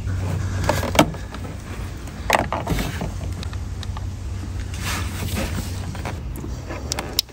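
A rubber cable grommet and wiring harness being pushed and twisted into the firewall hole by hand: scattered rubbing and rustling, with a few sharp clicks about a second in, a little over two seconds in and near the end. A steady low hum runs underneath.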